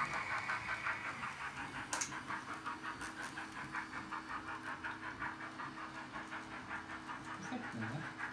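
Sound decoder of an H0 Roco model of steam locomotive DB 023 040-9 playing an even steam-chuff rhythm, about four beats a second, over the steady hum of model locomotives running on the track. A sharp click comes about two seconds in.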